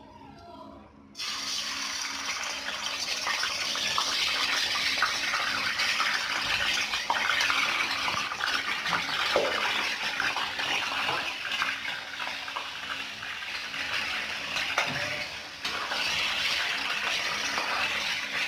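Raw chicken pieces sizzling and crackling in hot oil in a frying pan. The sizzle starts suddenly about a second in, as the chicken goes into the oil, and then runs on steadily.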